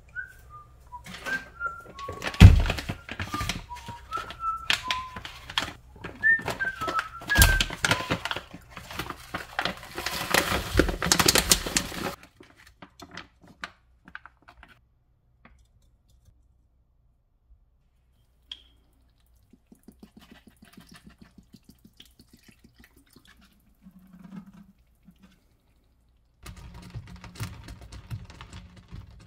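Kitchen handling noise: a dense run of knocks and clatter, with short high chirps among them, for about twelve seconds, then only sparse light taps. A steady low hum starts near the end.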